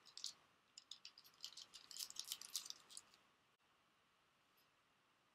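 Crinkling of a foil trading-card booster pack wrapper as the cards are drawn out: a quick run of crisp, irregular crackles lasting about three seconds, then near silence.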